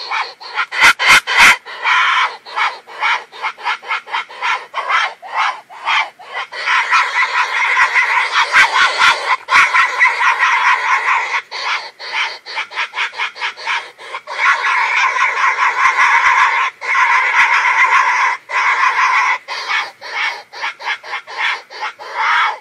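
Wild boar in heat calling: fast runs of short pulsing calls that at times run together into longer stretches. It is a recorded lure call played by boar hunters to draw in pigs.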